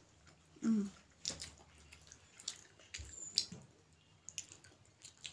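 Wet, close-up chewing and lip-smacking of someone eating steamed momos, as scattered short smacks and clicks, with a brief hum-like vocal sound a little under a second in.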